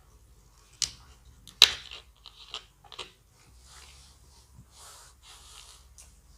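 Close-up mouth sounds of eating fufu and egusi soup: a few sharp wet clicks and smacks, the loudest about a second and a half in, then soft breathy noises.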